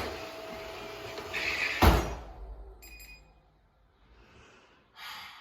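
Robot vacuum cleaner being handled: a hard thump about two seconds in, followed about a second later by a short high electronic beep.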